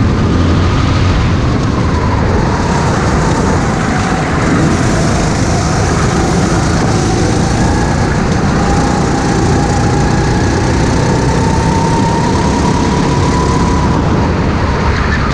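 Go-kart engine running hard on a racing lap, heard from the kart's onboard camera. Its note stays high, dips slightly a couple of seconds in, then climbs slowly.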